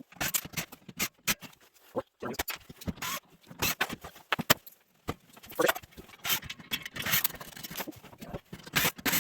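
Irregular metallic clicks, clinks and scrapes of hand tools and loose parts being handled while an old microwave is taken apart for scrap.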